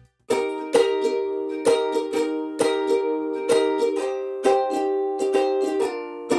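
Background music with a steady plucked-string beat, about two strokes a second, starting right after a brief silence.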